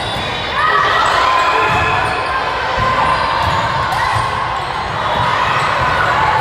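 Gymnasium ambience during a volleyball match: a hall full of people chattering, with sneakers squeaking on the court floor and the occasional thud of play.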